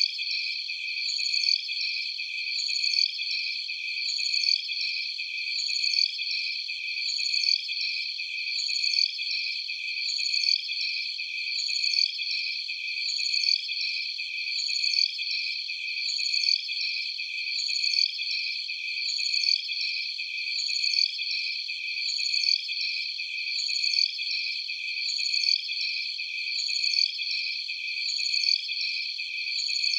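Alien jungle night ambience sound effect: dense, high-pitched insect-like chirring with no low sounds at all. A swelling, rising call repeats about every one and a half seconds over the steady trill.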